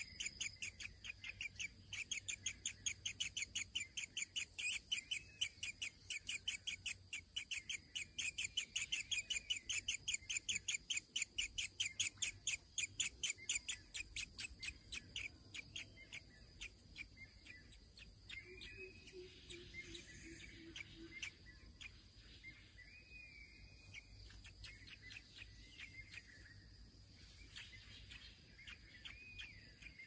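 Nestling begging calls: a rapid, regular series of high chirps, about four or five a second, that fades out about halfway through. After that come scattered softer bird calls over a faint steady high drone.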